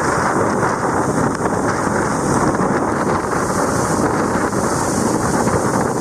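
Loud, steady rush of a tall waterfall plunging onto rock into its pool. Wind and spray buffet the microphone.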